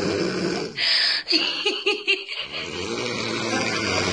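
A woman snoring loudly: a long snore, a short hissing breath about a second in, a fluttering, pulsing stretch, then another long snore.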